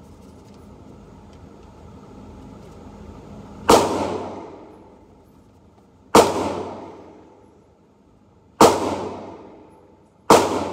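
Four gunshots from another shooting lane, about two and a half seconds apart, each ringing out in the reverberation of an indoor range.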